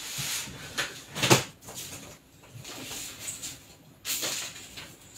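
A sharp knock about a second in, among softer knocks and rustling.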